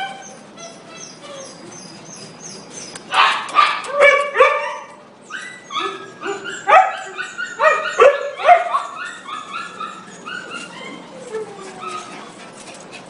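Many shelter dogs barking in their kennels, an overlapping chorus of barks at different pitches, with louder close barks about three seconds in and again from about six to nine seconds.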